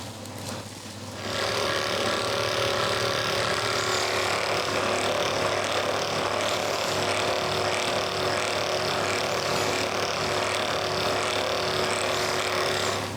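A small electric motor running steadily, with a hum of several fixed tones over a hiss, starting abruptly about a second in.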